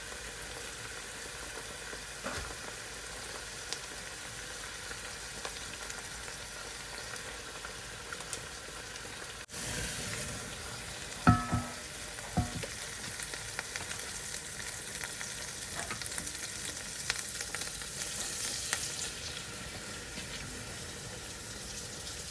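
Egusi paste with onion and pepper frying in red palm oil in a pot, a steady sizzle as it is stirred. Two ringing metal clanks a little past halfway, the first the loudest.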